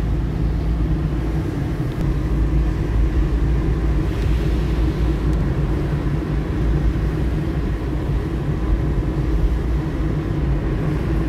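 Steady road noise inside a moving car's cabin: engine and tyre rumble, with the hiss of tyres on wet asphalt.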